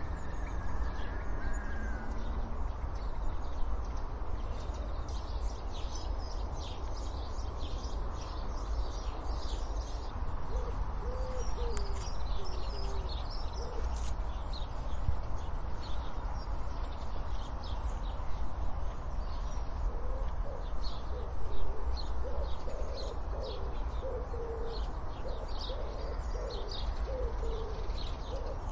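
Garden birdsong: small birds chirping and twittering high throughout, with low cooing phrases that come once around the middle and again as a longer run in the last third, over a steady low rumble.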